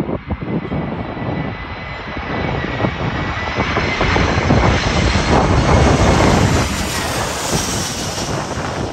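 Jet airliner's engines passing, growing louder to a peak around six seconds in and then easing, with strong wind buffeting the microphone.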